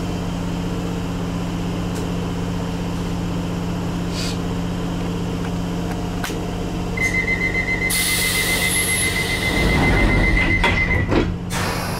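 London Underground Piccadilly line train standing at a platform with a steady low hum; about seven seconds in, the high door-closing warning tone sounds for about four seconds while the doors close with a hiss of air, ending in a short thud.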